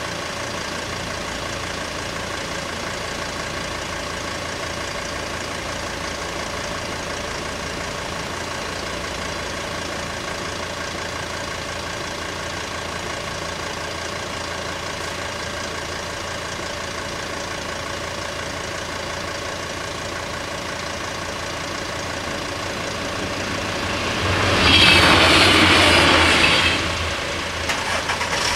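Steady engine idling of cars waiting at a closed railway level crossing, with a constant hum. About 24 s in, a louder rushing sound rises and lasts about three seconds before falling away.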